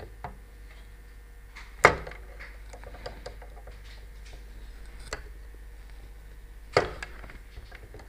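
Light clicks and taps of multimeter test probes and hands working over a circuit board on a wooden table, with two sharp louder knocks, about two seconds in and again about five seconds later.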